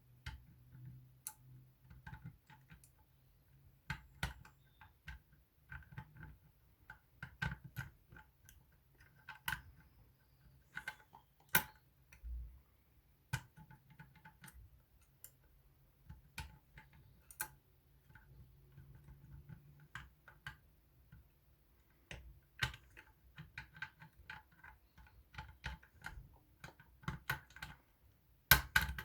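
Faint, irregular metallic clicks and ticks of lock picking tools working the levers inside a Union 3G110 five-lever lock, with a quicker run of clicks near the end.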